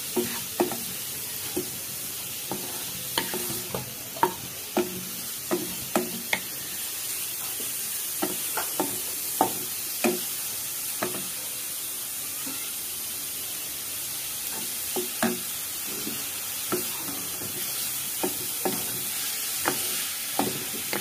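Wooden spatula scraping and knocking against a nonstick pan as grated coconut is stirred over the heat, in irregular strokes that thin out for a while in the middle. A steady faint sizzling hiss from the pan runs underneath.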